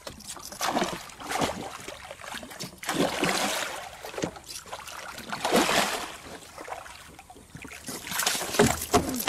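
A hooked giant snakehead (toman) thrashing at the water's surface beside the boat, splashing in repeated irregular bursts, loudest near the end, as it fights the line.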